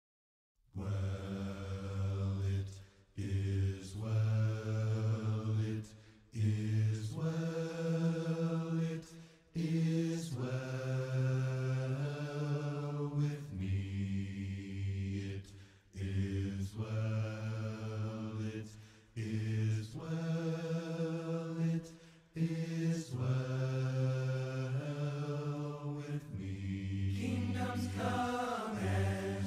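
A group of voices singing a slow hymn a cappella, with no instruments: long held notes in phrases of a few seconds each, with brief breaks between them, the low voices strongest.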